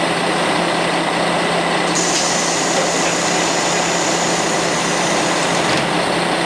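Hayato no Kaze diesel railcar idling at the platform, a steady engine hum. A thin high tone starts about two seconds in and stops near the end with a faint knock as the car's doors close.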